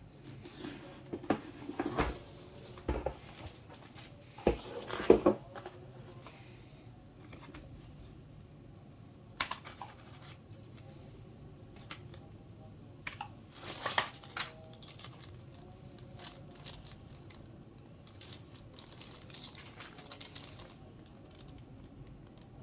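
Cardboard and plastic packaging being handled and torn open: irregular bursts of tearing and crinkling with a few sharp knocks, strongest in the first six seconds and again around the middle, then fainter handling noises.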